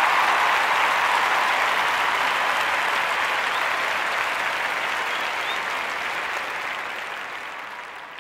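A crowd applauding, a dense, steady clatter of many hands that fades out gradually over the last few seconds.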